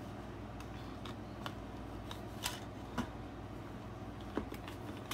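Fabric rustling and scattered light clicks from a plastic Q-snap frame as a thick fabric grime guard is stretched onto it by hand.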